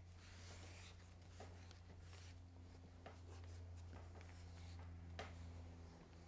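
Carved rubber eraser rubbing and scratching faintly across charcoal-coated paper as it draws white lines through the charcoal, with a few light ticks, over a low steady hum.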